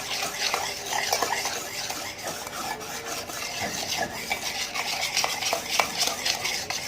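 Cake batter of eggs, sugar and oil being beaten by hand in a bowl: a utensil clicks and scrapes quickly and unevenly against the bowl.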